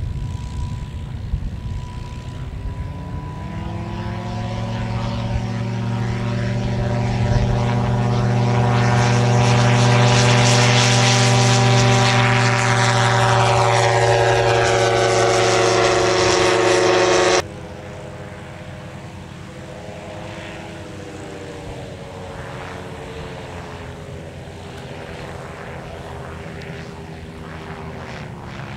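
Aventura II amphibious light aircraft's engine and pusher propeller: the engine climbs in pitch as it powers up, then runs loud and steady at high power. About two-thirds of the way through it cuts abruptly to a quieter, steady engine drone of the plane in flight.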